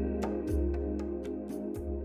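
Background music with a steady beat: a deep bass drum about every second and a bit, light high ticks, and sustained chords.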